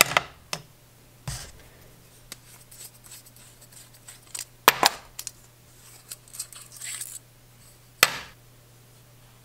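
Sharp clicks and small handling rattles of a metal retractable pen being taken apart by hand. The loudest clicks come about halfway through and about eight seconds in, with light scratchy handling between.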